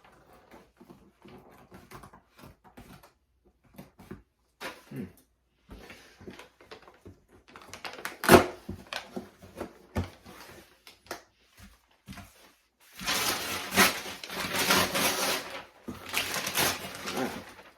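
A cardboard box and its packaging being handled and opened: scattered small clicks and crackles, a sharp snap about eight seconds in, then a few seconds of dense rustling and crackling near the end.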